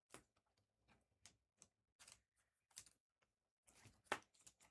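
Faint, irregular light clicks and rustles of trading cards being handled and flipped, a little stronger about four seconds in.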